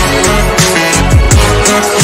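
Electronic background music with a steady beat and deep bass notes that slide down in pitch.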